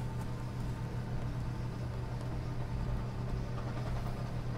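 A steady low hum, even in level, with a few faint light taps over it.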